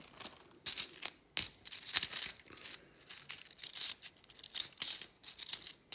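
50p coins clinking against one another as they are handled, stacked and set down on a desk mat by hand: a string of short, irregular metallic clinks.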